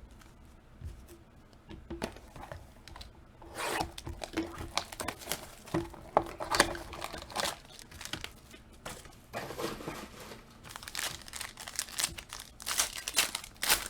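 Trading-card packaging being torn open and crinkled: the wrapper of the next box or pack of basketball cards ripping and crackling in irregular bursts.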